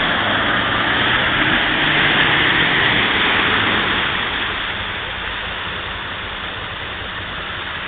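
Mercedes-Benz G-Class off-roader's engine working hard as it churns through deep mud and water, with a heavy splashing rush over the engine note. It fades gradually over the second half as the vehicle pulls away.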